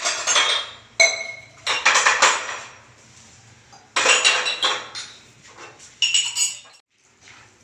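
Clinks and clanks of steel kitchenware, a metal tray and pot being handled and knocked: about half a dozen sharp strikes, each ringing briefly, the last about six seconds in, then only soft handling noise.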